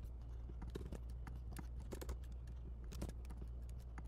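Computer keyboard keys clicking in an irregular scatter of presses over a low steady hum.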